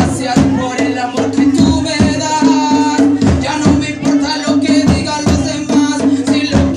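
Loud music played through a sound system, with a steady drum beat and a held bass note.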